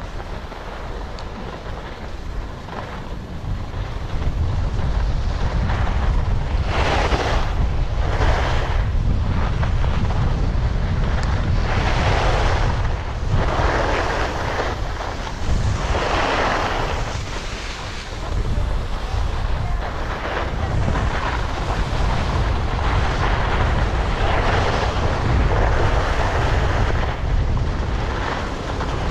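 Wind buffeting the microphone with a heavy low rumble, with swells of rushing noise coming and going every few seconds.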